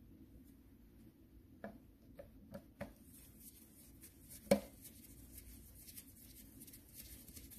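Small metal clicks of screws and parts being handled on an alternator's rear housing, four light ones and then a sharper one about four and a half seconds in, followed by faint fine scraping as a screwdriver turns a screw into the brush holder.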